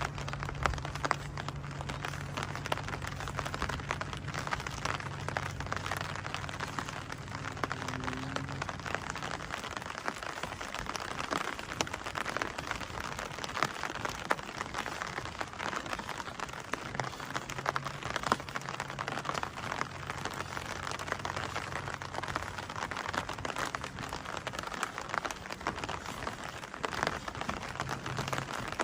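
Steady rain falling, a dense patter of drops. A low steady hum runs under it for the first third or so and returns around the middle.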